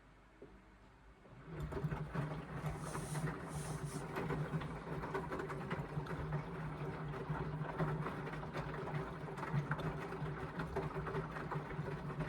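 Indesit washing machine's drum motor starts about a second and a half in and turns the loaded drum with a steady hum and an irregular clatter on top: the drum tumbling the wash early in the Express wash cycle.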